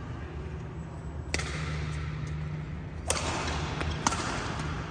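Badminton rackets striking a shuttlecock in a rally: three sharp hits, about 1.3, 3.1 and 4.1 seconds in. A steady low hum of the hall runs underneath.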